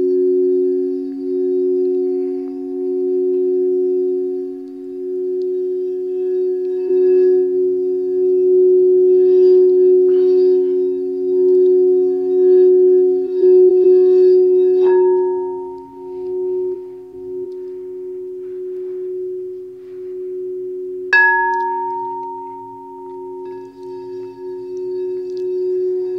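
Quartz crystal singing bowls ringing with two steady low tones that pulse and waver against each other. A bowl is struck about fifteen seconds in and again about twenty-one seconds in, each time adding a higher ringing tone.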